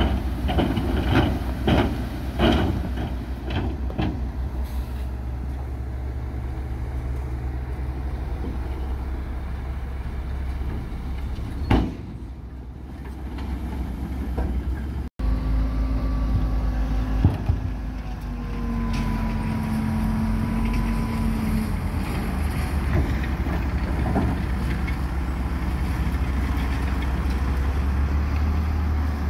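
Heavy diesel construction machinery running with a deep, steady engine rumble. Sharp metallic clanks come several times a second for the first few seconds. There is a cut about halfway in, after which the engine carries on with a faint whine rising and falling over it.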